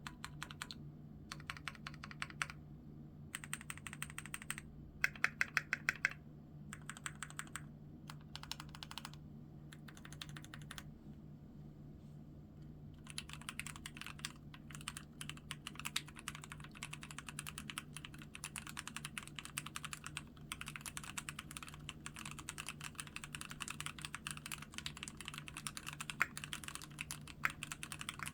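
Keychron Q3 mechanical keyboard being typed on: short separate runs of rapid keystrokes at first, one run near the middle of the first half louder than the rest, then continuous typing from about halfway on.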